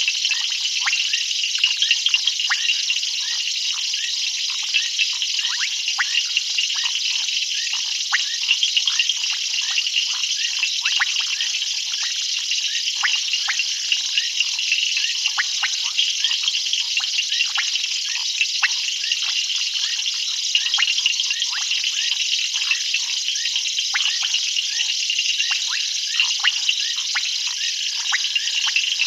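A dense night chorus of many frogs calling at once: a steady mass of rapid, high clicking and chirping, shot through with many short downward-sliding calls.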